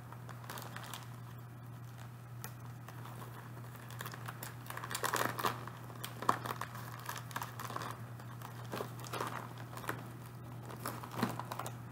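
Plastic kit bag crinkling and rustling as it is handled and opened, in irregular bursts that grow busier about four seconds in, over a low steady hum.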